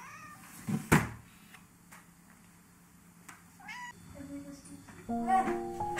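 A cat meowing, with short calls at the start and again just before four seconds in. A loud knock comes about a second in, and soft music begins near the end.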